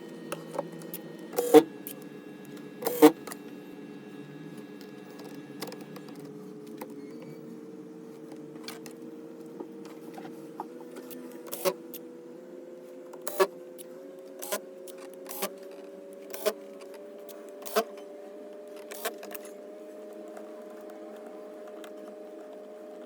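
Scattered sharp clicks and taps of small tools, screws and plastic laptop parts being handled during disassembly. The loudest clicks come in the first three seconds, then single clicks every second or so. Under them run soft held tones that step slowly higher.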